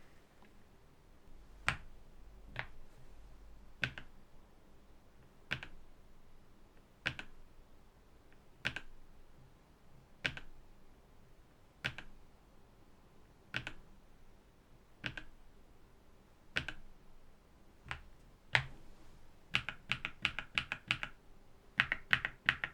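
Keys of a NuPhy Halo65 V2 mechanical keyboard being pressed one at a time, about every second and a half, followed near the end by two quick runs of rapid keystrokes.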